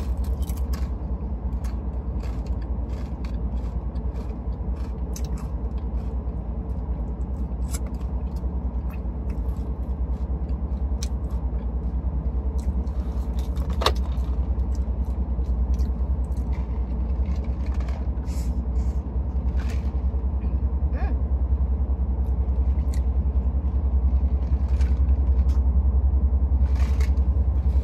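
Steady low rumble of a car's cabin, with scattered small clicks and taps from eating and handling a drink cup.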